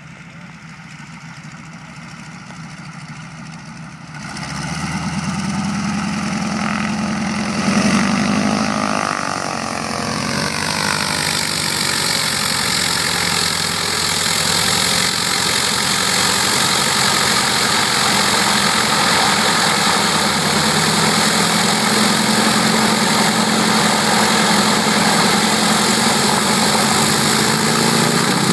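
North American T-6 Texan's Pratt & Whitney R-1340 nine-cylinder radial engine and propeller running as the plane taxis toward the listener. The sound grows louder about four seconds in and peaks briefly around eight seconds, then holds a steady, loud run.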